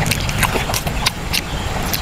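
Close-up eating sounds of a man chewing braised pork leg: wet smacks and clicks, several a second, over a steady low rumble.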